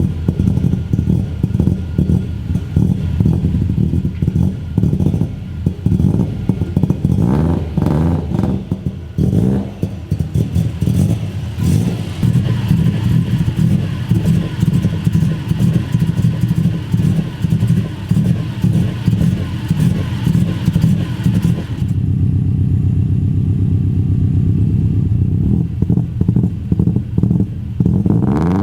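Modified Subaru GC8 Impreza WRX STI's turbocharged flat-four engine running with its anti-lag and cyclic idle active: a loud, uneven idle with irregular pops and crackles, turning into a steadier, quicker stutter about 22 seconds in.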